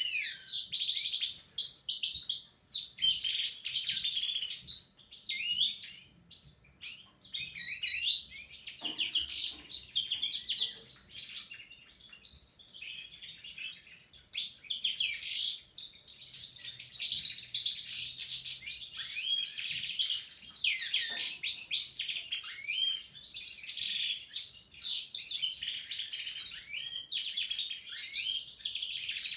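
Caged goldfinches and Raza Española canaries singing together: a continuous, rapid twittering warble, with short lulls about seven seconds in and again near twelve seconds.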